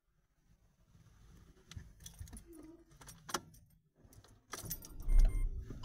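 Light metallic clicks and jingling inside a car cabin, growing busier near the end, with a dull low thump about a second before the end.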